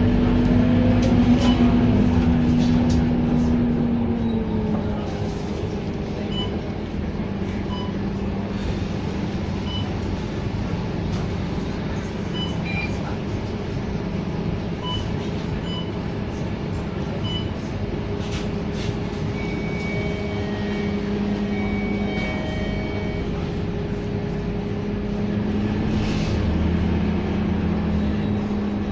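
A Scania K230UB city bus's diesel engine running while the bus drives along. Its drone is louder at first and drops in pitch about four seconds in, then holds steady, with scattered light ticks and rattles over it.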